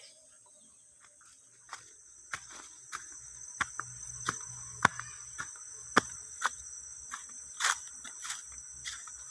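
Insects keep up a steady high-pitched chirring. Regular footsteps fall about every half second, starting about two seconds in.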